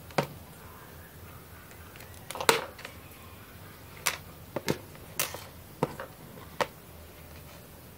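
Small plastic parts clicking and tapping as they are handled and fitted together: an SG90 servo's circuit board and potentiometer pressed against a 3D-printed plastic housing. About eight sharp clicks come at uneven intervals, the loudest a short cluster about two and a half seconds in.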